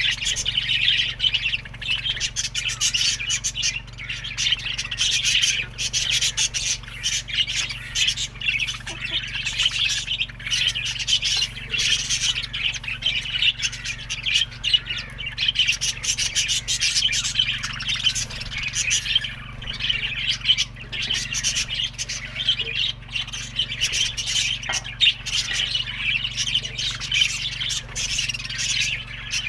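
A flock of budgerigars chirping and chattering continuously in a dense, rapid stream of high calls, over a steady low hum.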